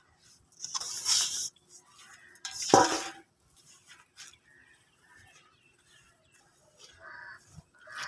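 Brittle material being crumbled and crushed: two loud crunches about a second and about three seconds in, then softer scattered crackles and a short crunch near the end.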